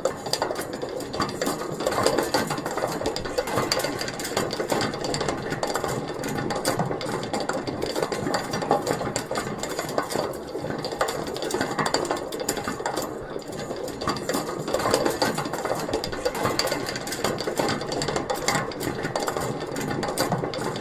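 Metal pulley mechanism running: a small metal wheel spinning with a continuous, rapid, uneven metallic rattle and clatter.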